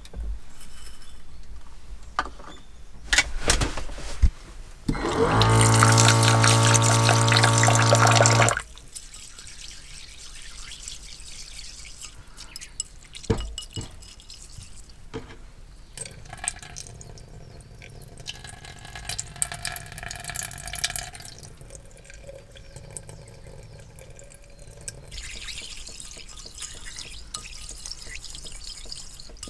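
Rice washed by hand in a small bowl of water at a sink. About five seconds in, the tap runs for roughly three seconds with a steady hum; then fingers swish and rub the wet rice, with drips and a few light knocks.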